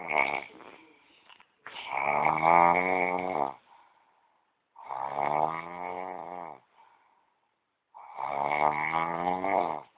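A sleeping person snoring: three long, pitched snores about three seconds apart, with the end of a previous snore fading just at the start.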